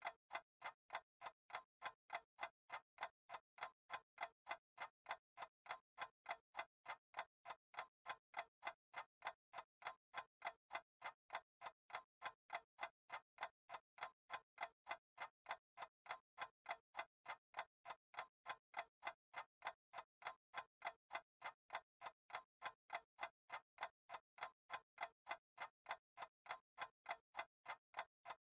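Timer ticking sound effect: a steady, even clock tick, about three a second.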